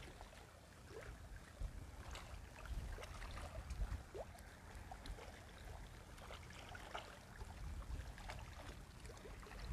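Faint seaside ambience: a low wind rumble on the microphone with light water lapping against rocks, and a few faint scattered ticks.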